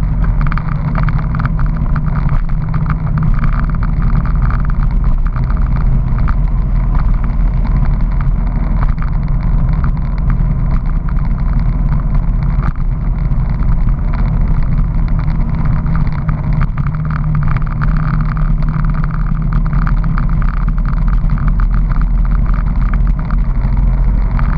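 Honda PC800 Pacific Coast motorcycle's V-twin engine running steadily at cruising speed, with wind and road noise rushing over the camera.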